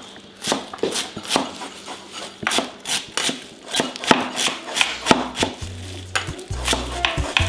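Chef's knife chopping fresh parsley on a wooden cutting board: a steady run of sharp knocks of the blade on the board, about two to three a second. Background music with a low bass comes in about five seconds in.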